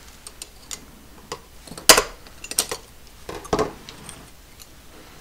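Small sharp clicks and clinks of a die-cast toy truck's metal and plastic parts being handled and pulled apart, with the loudest click about two seconds in.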